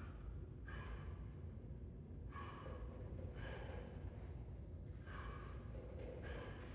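A man breathing hard while shadow boxing: short, sharp exhales, about one every second or so, over a steady low hum.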